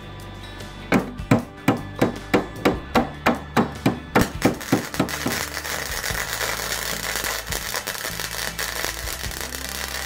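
A wire-feed welder crackles and hisses steadily as it welds a steel patch panel onto a Jeep fender. The crackle starts about five seconds in. Before it comes a run of evenly spaced thuds, about three a second, and background music plays throughout.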